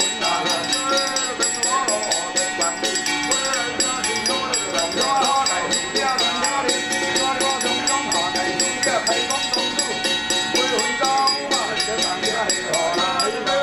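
Chinese temple ritual music: a wavering melody over continuous jingling, rattling percussion, steady throughout.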